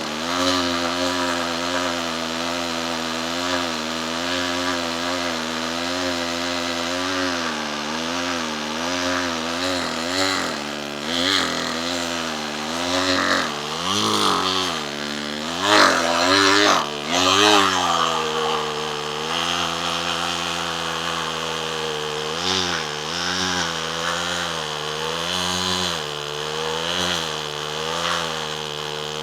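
Homelite Super 2 SL small two-stroke chainsaw running under load through an 11-inch wood round. Its pitch wavers up and down as the engine labours and recovers, with a few sharp revs about halfway through. It is a small saw that lacks power for big wood.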